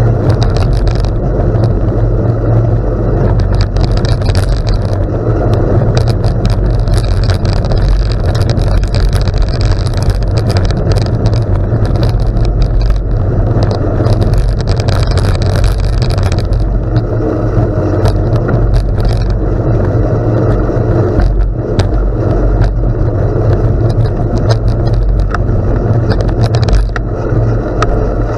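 Bicycle riding a gravel road: wind buffeting the microphone in a heavy steady rumble, with tyres crunching and crackling over gravel in quick irregular clicks.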